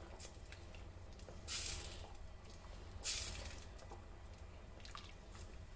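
Spoon stirring rice and pigeon peas in a pot of boiling water: two soft wet swishes, about a second and a half apart.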